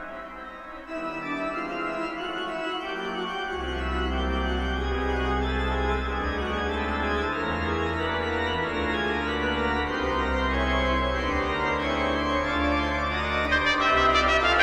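Pipe organ playing held chords, with deep pedal notes coming in about three and a half seconds in. A trumpet enters near the end.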